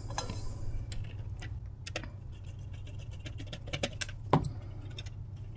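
Scattered light clicks and ticks of a screw and small parts being handled and fitted by hand during reassembly, with one louder knock about four seconds in, over a low steady hum.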